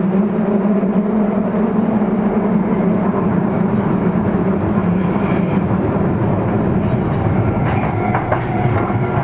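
Osaka Metro 30000-series subway train running between stations, heard from inside the car: a steady, loud rumble of wheels and running gear, with a few sharp clicks from about eight seconds in.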